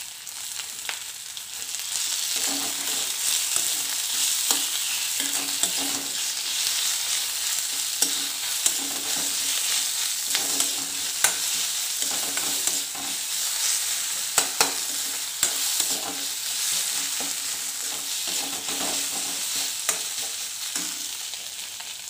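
Fish and sliced onion frying in hot oil in a kadai: a steady sizzle that swells about two seconds in, with the clicks and scrapes of a steel spoon stirring against the pan.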